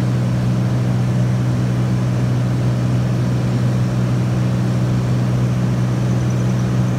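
Engine and propeller of a small propeller plane in flight, heard inside the cabin: a loud, steady low drone.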